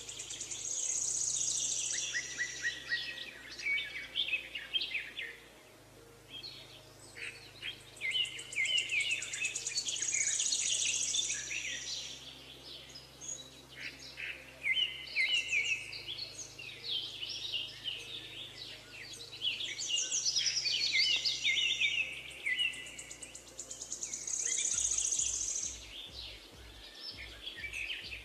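Several songbirds singing and chirping together: quick trills and repeated high notes that overlap and come in waves, loudest for a few seconds at a time.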